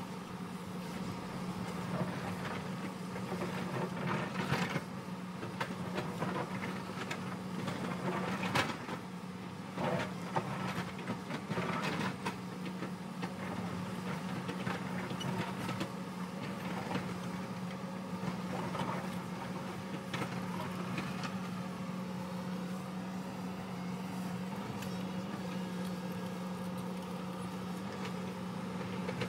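Hyundai crawler excavator's diesel engine running steadily under load as its bucket digs into a rocky hillside, with scattered knocks and clatters of bucket on rock and falling stones, most frequent in the first half.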